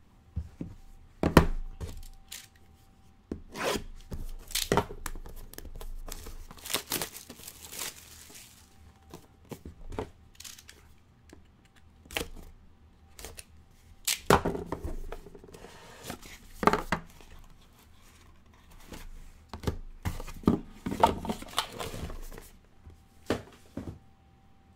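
Hands opening and handling small cardboard trading-card boxes: a stretch of tearing about six seconds in, and many sharp taps and knocks as the boxes are moved, set down and pulled open.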